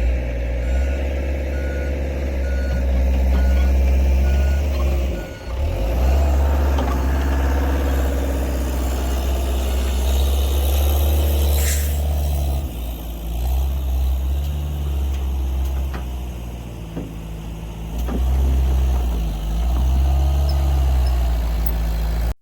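Skid steer's diesel engine running hard as it works soil, its note dropping and picking up again as the load changes. A backup alarm beeps steadily for the first five seconds or so, and there is one sharp knock a little past the middle.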